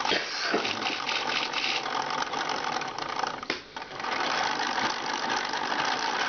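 Electric motors and plastic gear train of a Lego kite-painting machine running, a steady whirr with a fast gear chatter and a short dip about three and a half seconds in.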